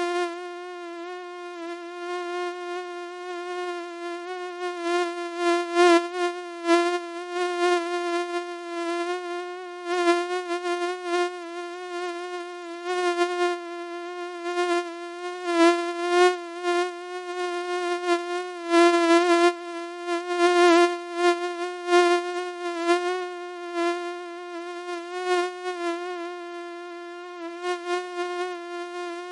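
Mosquito whine: a steady buzzing hum at one pitch with many overtones, swelling louder and fading back irregularly as if the insect drifts close to the ear and away.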